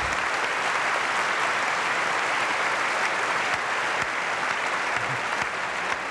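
Audience applauding, a steady dense clapping that holds at an even level throughout.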